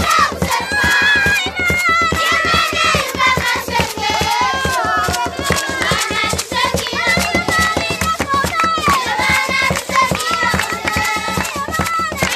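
A group of children singing together and clapping their hands in a steady rhythm.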